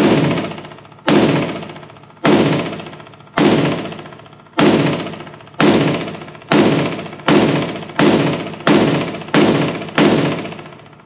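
Springfield Hellion 5.56 bullpup rifle fired semi-automatically: twelve shots, each with an echoing tail. They come about a second apart at first and quicken to roughly one every two-thirds of a second near the end.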